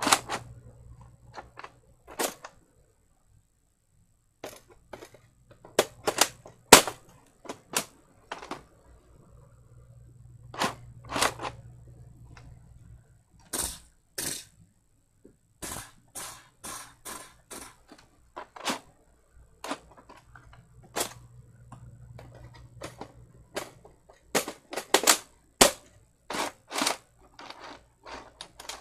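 Sharp plastic clicks and clacks of a toy Nerf blaster being handled, loaded and primed, coming irregularly, singly and in quick runs.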